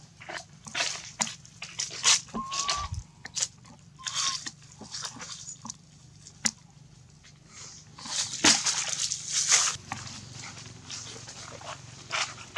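Irregular crackling and rustling of dry fallen leaves as long-tailed macaques shift about and forage in the leaf litter, busiest about eight seconds in, with a couple of brief high squeaks from a monkey in the first few seconds.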